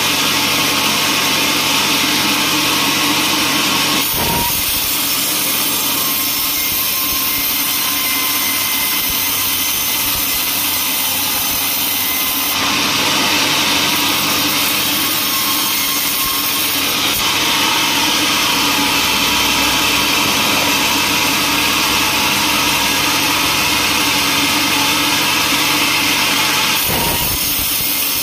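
Band sawmill blade cutting lengthwise through a large teak log: a steady, loud hiss over the machine's running hum. The sound changes character a few seconds in and again near the end.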